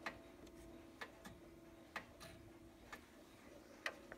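Grandfather clock ticking faintly, about once a second, with a low chime tone lingering and dying away underneath.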